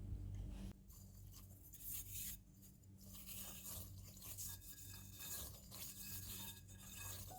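Soft, irregular rubbing and scraping sounds with brief pauses, after a low hum that stops about a second in.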